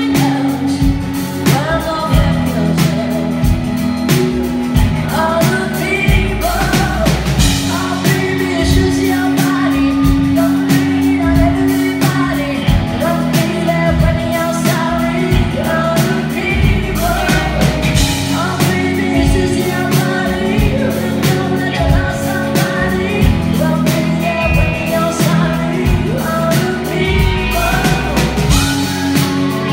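Live pop-rock song: a singer's voice over a strummed guitar, with the band's drums keeping a steady beat.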